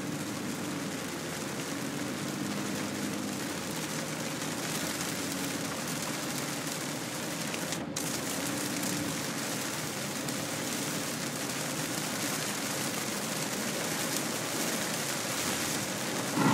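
Heavy rain beating steadily on a moving car's windscreen and roof, heard from inside the cabin, with the wet hiss of tyres on a flooded road and a faint low hum of the engine underneath.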